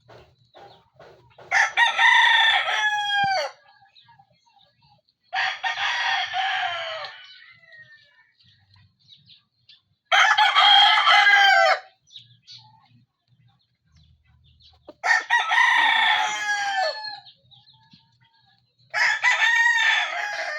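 Brahma rooster crowing five times, every four to five seconds, each crow lasting under two seconds. Faint clucking comes between the crows.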